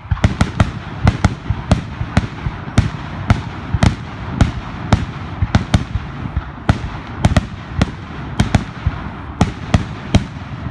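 Fireworks display going off: a rapid, continuous run of loud bangs, two or three a second, with a steady crackling haze between them.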